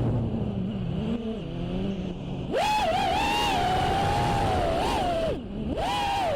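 Five-inch FPV quadcopter's iFlight Xing 2206 2750kv brushless motors with T-Motor 5143 props whining, the pitch following the throttle. The whine stays low at first, jumps sharply higher about two and a half seconds in and holds, dips briefly near the end and then climbs again.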